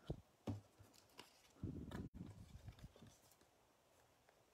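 Near silence broken by a few faint taps and a brief soft rustle about two seconds in, from trading cards being handled.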